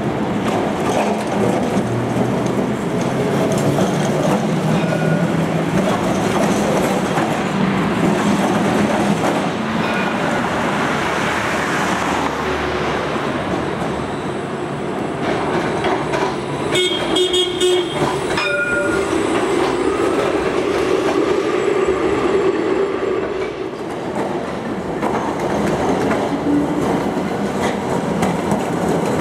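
Trams running past on street track, W class heritage trams and a modern articulated tram, with a steady rumble of wheels on the rails mixed with road traffic. A little past halfway a tram bell is rung rapidly several times.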